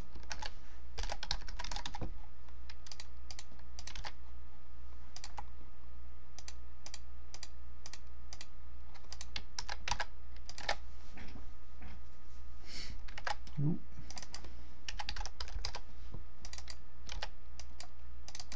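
Typing on a computer keyboard: irregular runs of keystroke clicks with short pauses, over a steady low hum.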